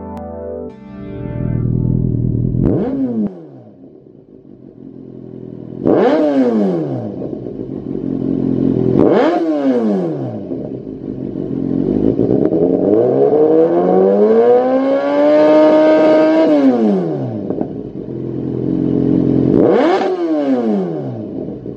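Kawasaki Z800's inline-four engine breathing through a Lextek XP8C carbon-fibre aftermarket silencer, idling and free-revved while stationary. There are four quick throttle blips that rise and fall sharply, and one slower rev in the middle that climbs, is held high for a couple of seconds, then drops back to idle.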